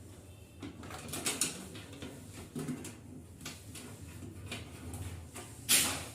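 Clicks, knocks and rattles of parts being handled while an automatic washing machine is taken apart, with one louder short scrape near the end.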